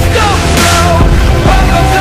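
Loud music from the slideshow's soundtrack, playing continuously.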